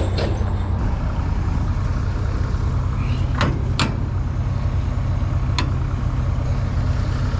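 Farm tractor engine running steadily at idle, with a few sharp knocks of hitching gear at the start, twice around the middle and once more later.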